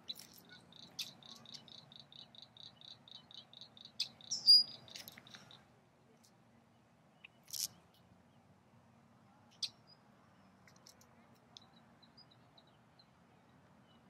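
Red-winged blackbird calling: a rapid run of short high notes for about the first five and a half seconds, with one loud sharp call about four and a half seconds in. After that come a few scattered single chips.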